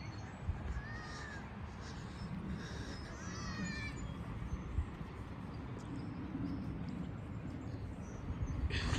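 A bird calling outdoors: one short arched call about a second in, then a quick run of curved notes around three seconds in, over a steady low rumble of wind on the microphone.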